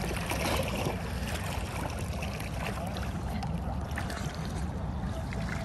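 A swimmer splashing at the water's surface, arm strokes churning the water, over a steady low rumble.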